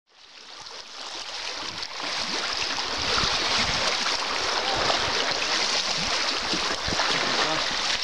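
Shallow seawater lapping and trickling among rocks at the shoreline: a steady rushing hiss that swells up over the first couple of seconds, with a few soft low thumps.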